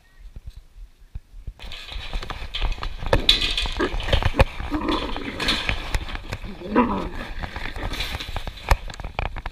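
A pack of wolves growling and jostling at close quarters around a feeding bucket, with clothing and leaves rustling against a chest-worn camera's microphone, starting about a second and a half in.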